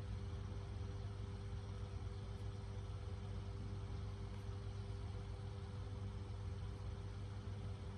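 Steady low mechanical hum with a couple of faint steady tones, unchanging throughout.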